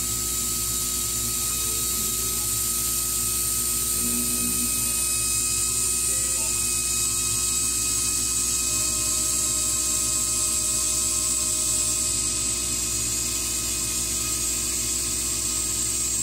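Laser cutting machine at work cutting through half-inch poplar: a steady high hiss with a steady hum under it, and faint tones that shift a few times as the cutting head moves.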